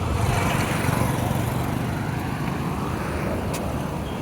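Road traffic: a motor vehicle engine running close by with a steady low hum over the noise of passing traffic.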